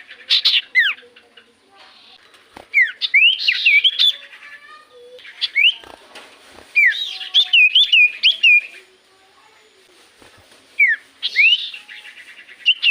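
Common iora (cipoh) singing: bouts of quick, clear whistled notes sliding up and down, about five bursts separated by short pauses.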